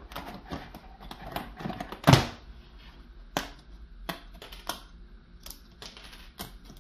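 Die-cut card sheet being handled and its pieces popped out: a series of sharp, irregular clicks and snaps, the loudest about two seconds in, with rustling of stiff card between them.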